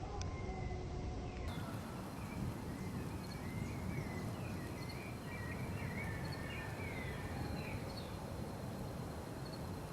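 Outdoor ambience: birds chirping in a run of short, gliding calls from about a second and a half in until near the end, over a steady low rumble.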